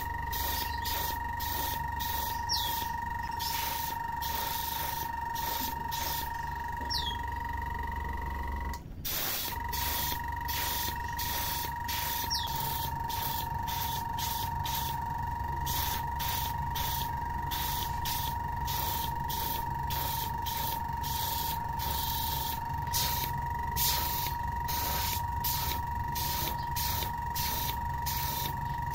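Airbrush spraying primer in short, repeated hissing bursts, two or three a second, over the steady whine and hum of its small air compressor. The sound breaks off briefly about nine seconds in.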